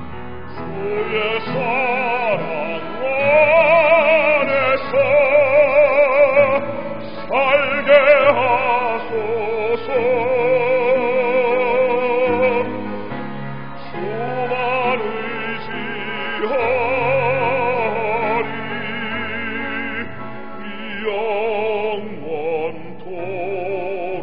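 A hymn sung solo in a classical, operatic style with wide vibrato over instrumental accompaniment.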